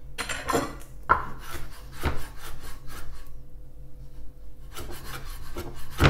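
Chef's knife chopping fennel fronds on a wooden cutting board: quick runs of knocks as the blade strikes the board, with a pause of about a second and a half partway through before the chopping resumes.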